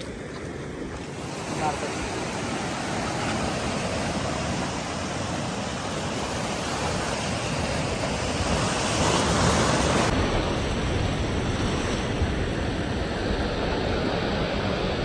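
Sea surf washing and breaking over a rocky shoreline as a steady rush of water, swelling loudest about nine seconds in.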